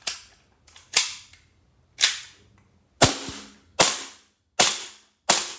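Gas-powered airsoft 1911 pistol firing seven single shots of 6 mm BBs, each a sharp crack. They come about one a second, a little quicker in the second half. The gun has just been checked for gas leaks.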